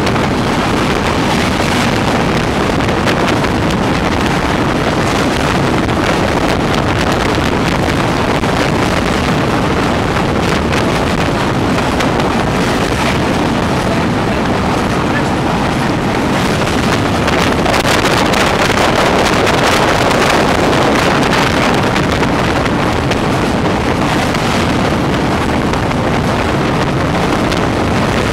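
Steady rumble of a passenger train running over a long rail bridge, heard from aboard, with wind rushing over the microphone. It grows a little louder about two-thirds of the way through.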